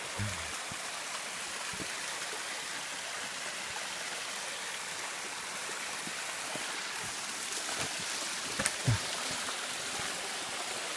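Small rocky creek running and splashing over stones, a steady rushing hiss of water. A couple of soft knocks about three-quarters of the way through.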